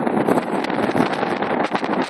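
Strong wind buffeting the microphone: a loud, steady rush with rapid irregular gusts and crackles.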